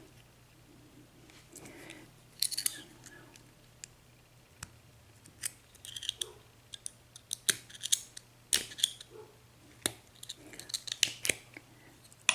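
Light metallic clicks and scrapes of a Yale six-pin mortice lock cylinder being worked by hand, its key turned back to lock and its plug's retaining clip being pried off. The clicks are irregular and come more often in the second half.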